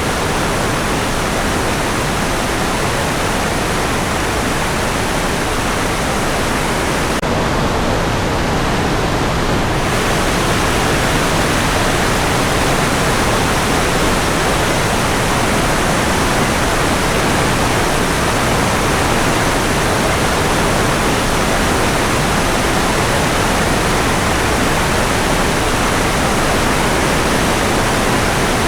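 Mountain stream rushing over rocks: a steady, loud rush of water. For about three seconds, some seven seconds in, its bright hiss dulls.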